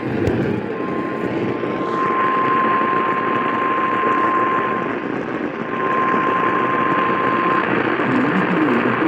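Radio static from a weakly received station: a steady hiss with a steady high whistle running through it, which drops out briefly about five seconds in and again near the end.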